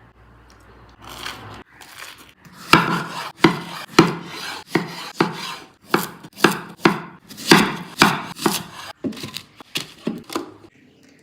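Knife chopping food on a cutting board: a regular run of sharp strokes, a little under two a second, after some light handling at the start.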